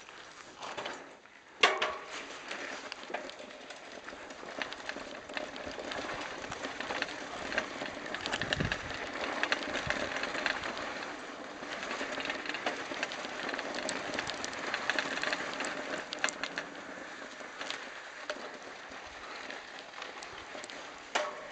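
Mountain bike rolling over a gravelly, sandy canyon track: tyres crunching with a continuous rattle and many small clicks and knocks from the bike. A sharp knock about two seconds in.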